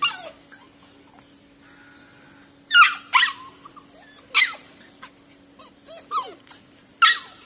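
Puppies at play: a puppy yelping and whimpering in short, high cries that fall in pitch, the loudest about three seconds in, again past four seconds and near the end.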